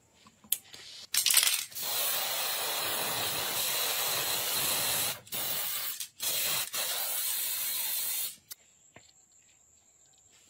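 Paint being sprayed onto a pistol frame and slide: a steady hiss of spray in one long pass, broken by three short pauses, stopping about eight seconds in. A few light clicks come just before the spraying starts.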